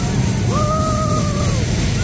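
Loud fairground din from the running rides and crowd: a steady low rumble, with a single held high tone starting about half a second in and lasting about a second before it drops away.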